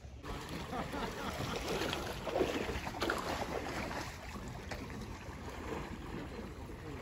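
Lake water sloshing and splashing as a seine net is hauled through it, busiest a couple of seconds in, with wind rumbling on the microphone.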